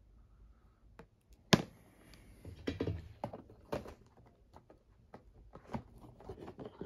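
Collectible display boxes being handled: one sharp snap about one and a half seconds in, then a scattering of light taps and clicks as the boxes are shifted and set down.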